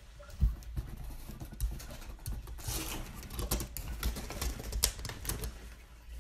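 A cat scrambling up onto a windowsill and forcing its way behind horizontal window blinds: a thump about half a second in, then a long run of clicks and rattles from the blind slats.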